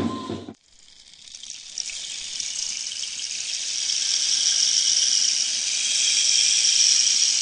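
Music cuts off abruptly about half a second in, followed by a steady high hissing rush that builds up over the next few seconds and then holds.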